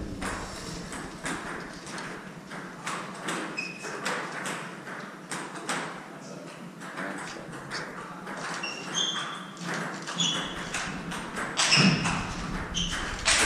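Table tennis ball clicking on the table and bats in a string of short sharp ticks, busiest and loudest in a rally near the end, with brief squeaks of sports shoes on the wooden court floor.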